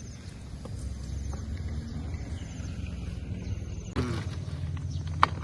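Steady low motor hum with a faint regular pulse, shifting abruptly about four seconds in, followed by a few sharp clicks near the end.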